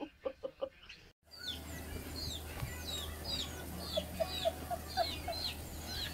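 Birds chirping: a run of short, high, falling chirps about twice a second, starting about a second in. From about four seconds in, short low clucks join them.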